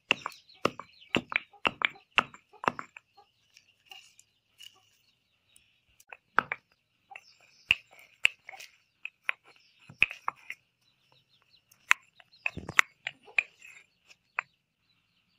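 Soaked almonds being crushed with a round stone pounded into a stone mortar. Sharp knocks come about three a second at first, then scattered single strikes, then another quick run of strikes near the end.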